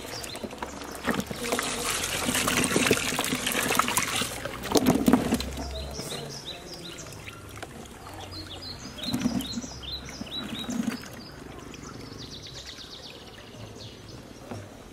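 Hands swishing and rubbing cut yam pieces in a plastic tub of water: splashing and sloshing, busiest in the first few seconds with a louder splash about five seconds in. A bird chirps repeatedly in quick short notes through the middle.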